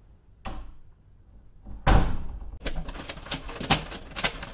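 Front door shutting with a loud thud about two seconds in, followed by keys jangling and a key rattling and clicking in the door's lock.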